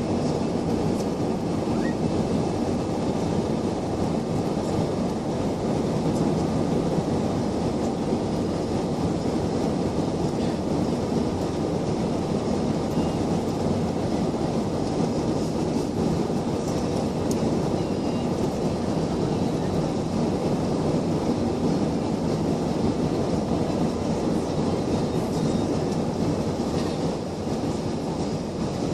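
Steady drone of engine and airflow noise inside an airliner's passenger cabin, even and unbroken throughout.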